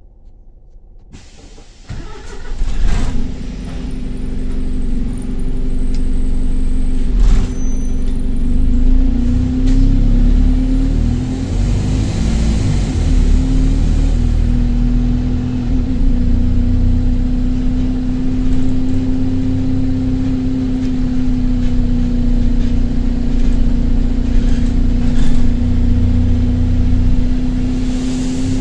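Stagecoach London double-decker bus engine heard from the upper deck. It comes in loud about two seconds in and runs on with a steady drone and rumble, with a high whistle that rises and falls near the middle: the sound of a burst turbo exhaust.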